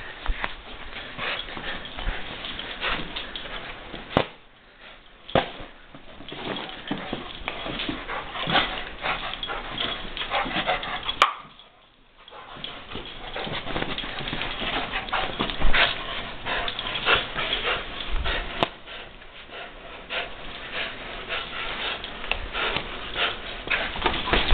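Pit bull vocalising while tugging and thrashing a plush toy, with many short sharp rustles and knocks from the scuffle; a brief lull about halfway through.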